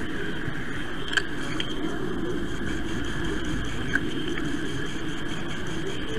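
Model train running along its track, heard from a camera riding on it: a steady rumble of wheels and motor with a faint whine, and two short clicks about one second and four seconds in.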